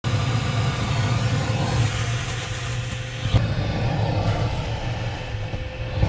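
Vacuum cleaner running steadily as it sucks a silver tinsel garland up through its hose, a low motor hum under the rush of air, with one sharp knock a little over three seconds in.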